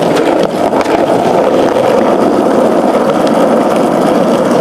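Skateboard wheels rolling over street pavement, a loud, steady rumble that stops abruptly.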